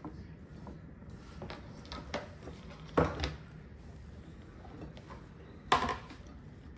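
Kitchen utensils knocking and scraping against a mixing bowl while chopped vegetables are stirred into imitation crab meat, with two sharp knocks about three seconds in and near the end.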